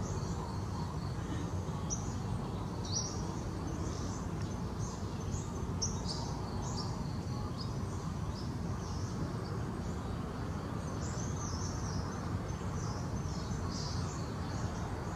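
Small birds chirping in quick, scattered bursts over steady low background noise.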